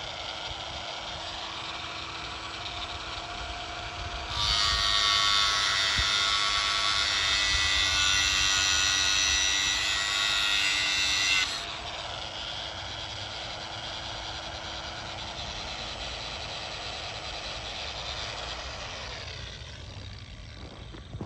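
Bauer 20V cordless 4-1/2 in. angle grinder running, its disc biting into metal for about seven seconds with a much louder, harsher grinding, then spinning freely and winding down near the end.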